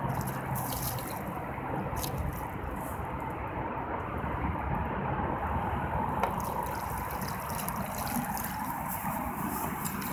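Water splashing and trickling as a hooked carp thrashes at the surface and is drawn into a landing net, with small splashes scattered over a steady wash of water noise.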